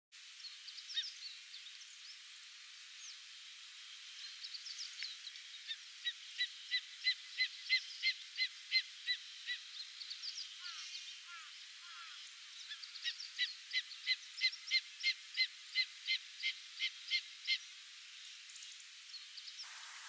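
Greater spotted eagle calling: two runs of about a dozen short, clipped high notes each, at about three a second, with a pause of a few seconds between the runs.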